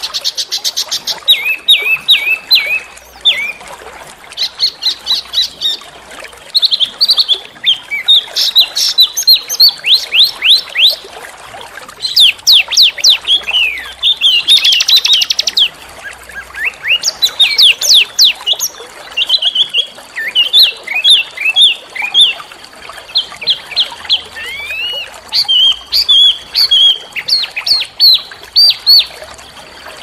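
Small songbirds singing a rapid run of sharp chirps and quick downward-sweeping notes, broken twice by short buzzy rattles, about a second in and again about halfway. A faint, thin, steady high tone runs under the song in its second half.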